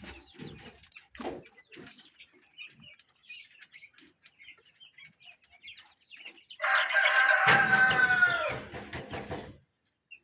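Domestic chickens clucking softly, then a rooster crows once, loudly, for about three seconds, about two-thirds of the way through.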